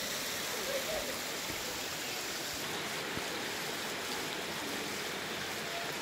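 Shallow mountain creek running over rocks and gravel: a steady rush of water.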